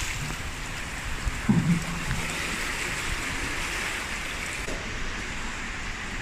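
River water rushing and rippling steadily through a concrete culvert, with a single dull knock about one and a half seconds in.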